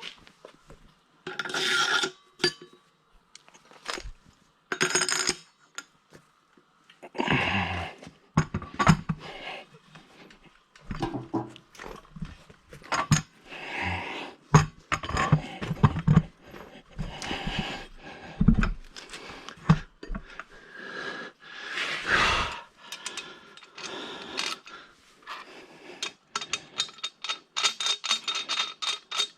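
Metal parts and tools being handled: irregular clinks, knocks and scrapes of steel on steel, with a quick run of clicks near the end.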